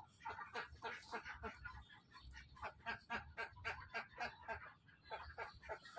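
A dog sniffing hard with its nose down in a hole in the ground, a rapid run of short sniffs, about four or five a second, with brief pauses.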